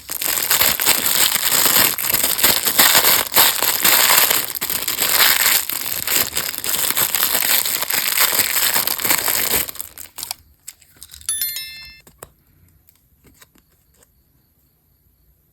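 Plastic candy wrapper crinkling and tearing densely for about ten seconds, then stopping. About a second later a short high ringing sounds, followed by only faint light taps.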